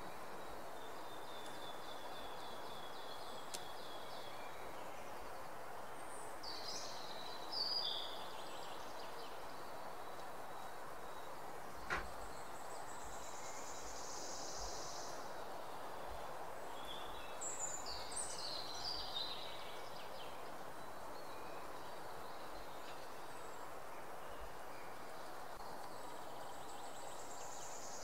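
Birds chirping and trilling on and off over a steady background hiss, with one sharp click about twelve seconds in.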